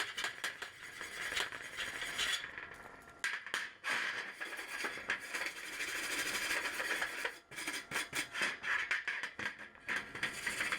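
Wire brush scrubbing over a freshly welded metal bracket in repeated strokes to clean up the weld, with a few short pauses.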